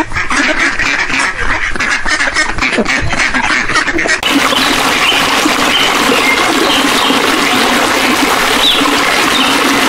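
White domestic ducks quacking repeatedly for about the first four seconds. Then the sound cuts abruptly to a steady hiss with faint scattered ticks.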